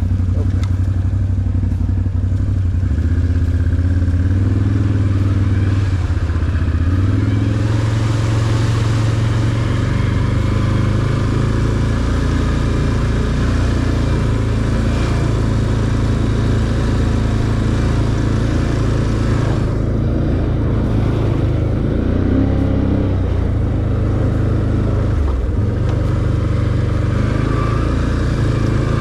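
Can-Am ATV engine running at trail speed, its pitch stepping up and down with the throttle.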